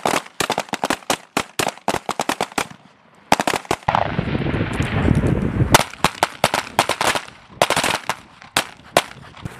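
Rapid, overlapping 9mm pistol shots from a firing line of Sig Sauer M17/M18 service pistols, dozens of sharp cracks in quick succession with a short lull about three seconds in.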